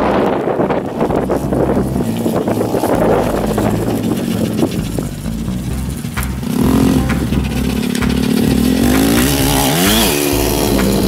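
Small Yamaha dirt bike engine running as it is ridden, revved up and back down sharply near the end as it passes close by.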